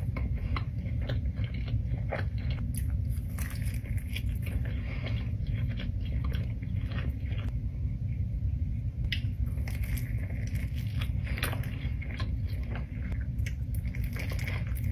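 Close-up chewing and biting of food, with many irregular crisp crunching clicks over a steady low hum.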